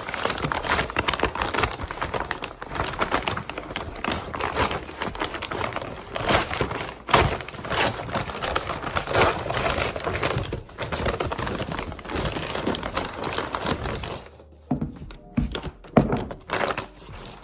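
Plastic packaging crinkling and rustling as a package is handled and opened, dense with small crackles for about fourteen seconds, followed by a few separate light knocks.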